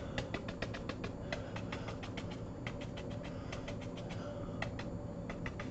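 A bristle brush loaded with acrylic paint tapping rapidly against a canvas, stippling in foliage: a steady run of short, sharp taps, about six a second.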